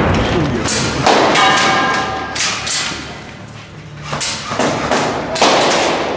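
A series of heavy, echoing impacts, about four in all, each a second or more apart, with a metallic ring after the first. These are typical of a breaching ram being struck against a locked door.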